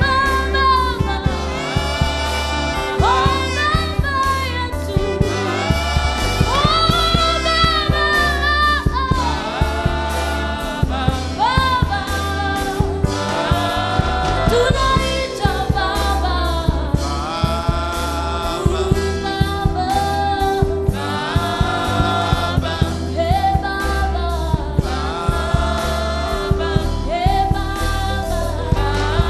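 Gospel choir singing with a woman's lead voice, amplified over a PA, with a steady beat and bass underneath.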